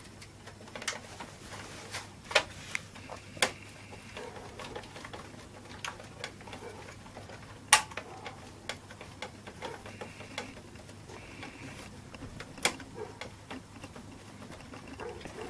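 Irregular clicks, taps and knocks of metal and plastic parts being handled while a DVD drive is worked out of a desktop PC case, with the loudest knocks about eight and thirteen seconds in, over a faint low hum.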